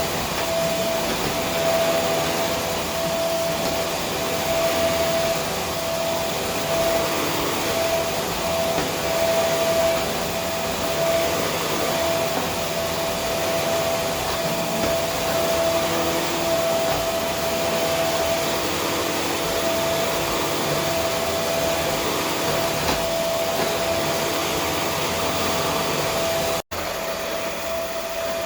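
Vacuum cleaner running steadily, a dense rushing air noise with a constant motor whine. It cuts out for an instant near the end and resumes with less low rumble.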